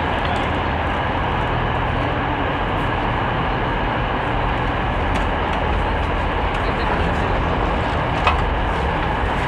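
Railway station ambience: a steady rumble of trains with an even background wash of noise, and a single sharp knock about eight seconds in.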